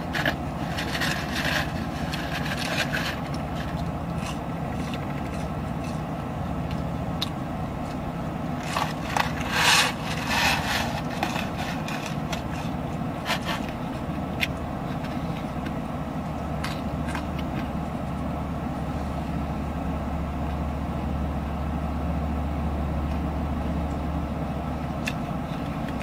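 Steady low rumble of a car cabin on the move, deepening in the second half. Over it come scattered clicks and bursts of rustling handling noise, briefly near the start and loudest about nine to eleven seconds in.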